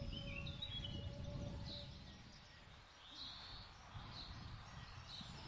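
Outdoor ambience: scattered short bird chirps, roughly one every second, over a low, uneven rumble.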